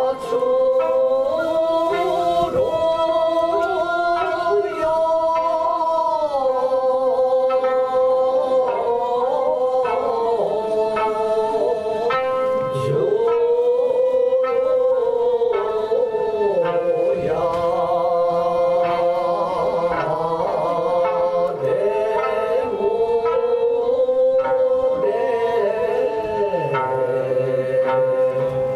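Ryukyuan classical dance music: slow singing in long held notes that bend in pitch, over plucked sanshin accompaniment.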